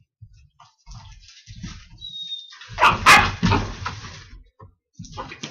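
Dogs wrestling on carpet: irregular scuffling and thumps of paws and bodies, a brief high whine about two seconds in, then a loud bark about three seconds in.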